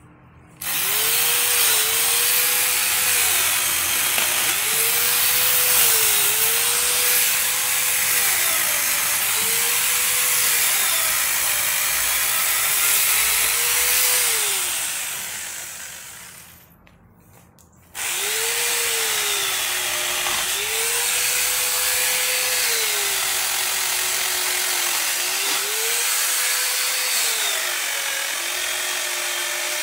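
Electric angle grinder fitted with a chainsaw bar-and-chain attachment cutting through tree branches. Its motor whine sags in pitch again and again as the chain bites into the wood, then climbs back as the load eases. About halfway through it winds down and stops for a couple of seconds, then starts up again.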